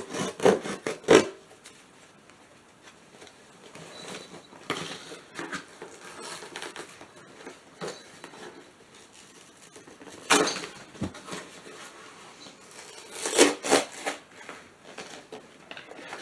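Packaging rustling and small items clicking and clattering as a box is unpacked by hand, in short bursts at the start, about ten seconds in and again around thirteen seconds, with light rustling between.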